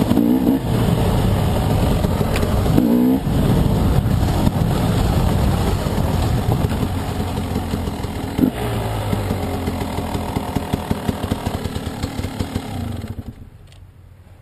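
Dirt bike engine running under way on a trail, recorded from the rider's helmet, its revs rising and falling. About 13 seconds in the engine sound drops away sharply.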